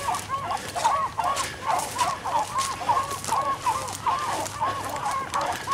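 A pack of beagles baying as they run a rabbit's trail: short rising-and-falling calls, about three a second, overlapping from more than one dog. Footsteps rustle through tall dry grass.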